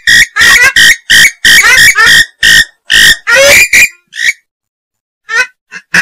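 Swamphen (mandar biru) breeding-season lure call: a quick run of loud calls, about two a second, that breaks off about four seconds in, followed by a couple of short calls near the end.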